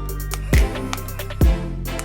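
Background music: electronic track with a heavy kick drum and snare beat under sustained synth chords.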